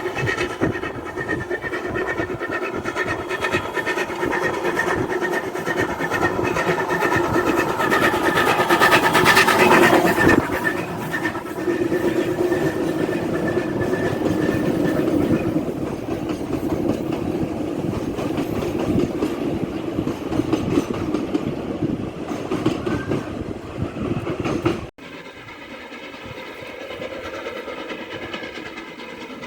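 A train running on the line, loudest about ten seconds in; the sound drops off abruptly a few seconds before the end and carries on quieter.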